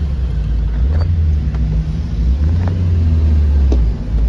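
Nissan Sentra heard from inside the cabin while driving: a steady low engine and road rumble, with a few faint clicks. The engine has no proper idle, which the owner puts down to a faulty MAP sensor.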